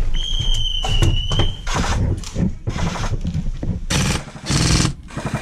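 A steady high whistle-like tone for about a second and a half, then several short bursts of airsoft automatic fire, each about half a second long.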